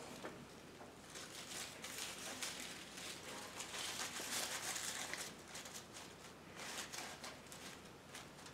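Faint rustling and crinkling of artificial flowers and leaves being handled and pushed into a tray, with small ticks and taps. It is busiest from about one to five seconds in, then thins to scattered ticks.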